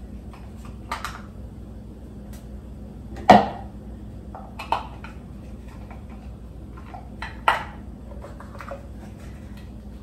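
Plastic parts of a MyJo single-cup coffee maker being handled and fitted together: a few sharp clicks and knocks, the loudest about three seconds in and another strong one near the end.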